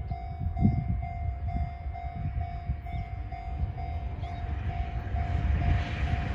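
Level-crossing warning signal sounding a single pulsing tone about twice a second, over the low rumble of an approaching diesel locomotive-hauled train that grows louder near the end.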